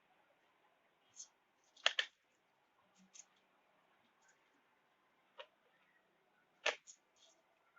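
Scattered light clicks and knocks of kitchen utensils being handled, with a sharper double knock about two seconds in and another near the end.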